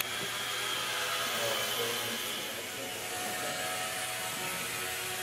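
Blade mQX quadcopter's four small electric motors and propellers whining steadily, the pitch wavering slightly as the throttle changes.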